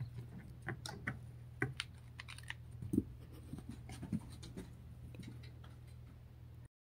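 Irregular soft scratches and light taps, a cat's claws and paws on carpet and a plush cat tree, over a steady low hum; it all cuts off just before the end.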